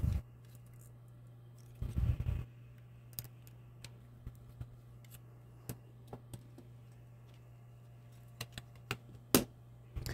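Small clicks and knocks of hands handling a circuit board with a metal faceplate and setting knobs and a hex driver down on a work mat: a short cluster of rattling knocks about two seconds in, then a scatter of light clicks, the sharpest near the end, over a faint steady low hum.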